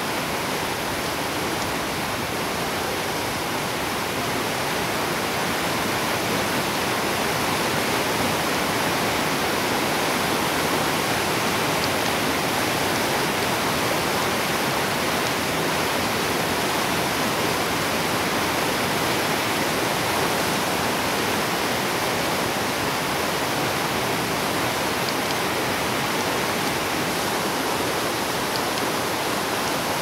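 Steady rushing of river rapids, swelling slightly in the first few seconds and then holding even.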